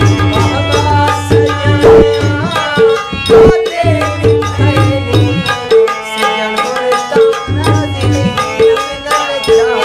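Pakistani folk song performed live: a harmonium sustains chords under a tabla playing a steady, repeating rhythm, while a male voice sings bending, drawn-out notes.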